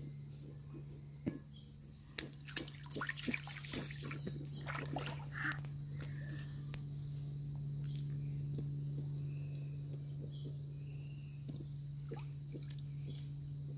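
Shallow creek water splashing and sloshing as a rubber ball is pushed and dunked in it, a run of small splashes from about one to six seconds in, then quieter.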